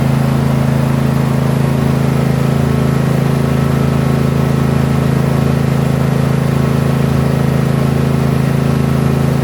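Toro lawn mower engine running at a steady, unchanging speed.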